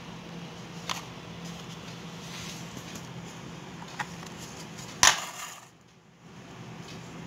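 Small taps of objects set down on a hard tabletop during ribbon craft work: a light click about a second in, a sharper one at about four seconds, and a loud knock at about five seconds, over a steady low hum.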